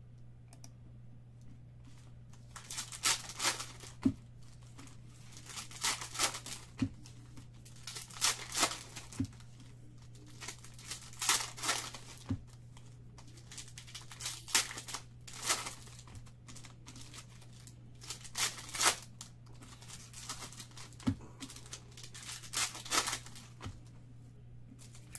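Foil wrappers of 2016-17 Panini Select basketball card packs being torn open and crinkled, in short crinkly bursts every second or two, with a few light taps between them.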